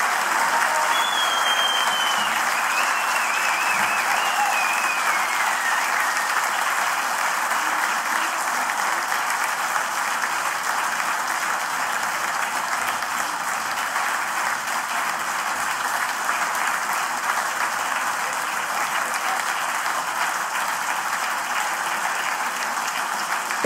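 A large concert audience applauding, a steady dense clapping that eases slightly toward the end.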